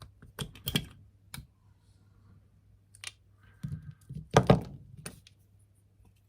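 Small carburetor parts being taken apart by hand: scattered light clicks and knocks of metal parts on the bench, with a loudest cluster of knocks about four and a half seconds in.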